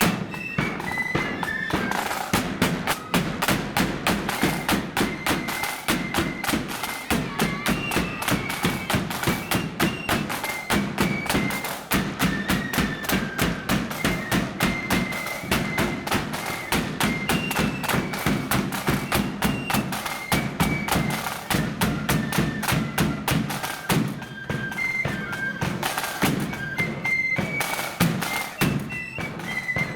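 A marching flute band playing a march: a high flute melody carried over steady, rapid snare drum beats and a bass drum.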